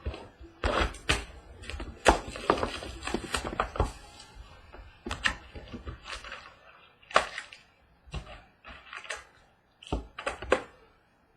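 A sealed trading-card box being opened by hand: crinkling and tearing of its wrapping and cardboard, then packs handled with a series of sharp taps and knocks.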